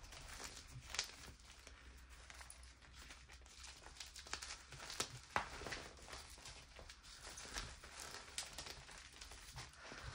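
Pressed gym chalk crumbling between fingers: a faint, irregular crackle of small crunches and powdery crumbs falling, with a few sharper snaps as chunks break.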